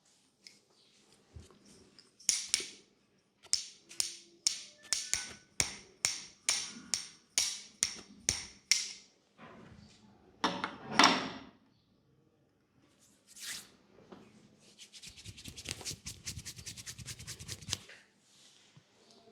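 Hands working on a person's head in a massage: a steady run of quick, sharp strokes at about three a second, one louder stroke, then a few seconds of fast rapid tapping.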